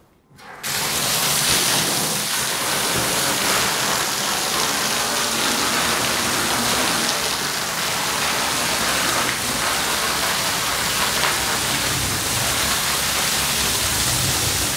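Water spraying from a hose wand onto a soaked rug and the wash floor: a steady splashing rush that starts about half a second in. This is a rinse that flushes loose dry soil from the rug and saturates it before scrubbing.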